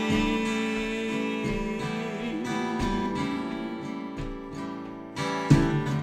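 Acoustic guitar played solo: strummed chords ring on and slowly fade, then a firmer strum comes near the end.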